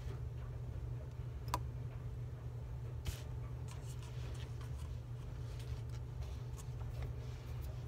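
A steady low room hum with a few faint, sharp clicks, the clearest about a second and a half in and again about three seconds in.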